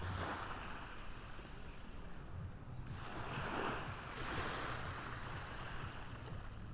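Ocean waves washing onto a shore: surges of surf hiss that swell and fade, one at the start and two more about halfway through, over a low steady hum.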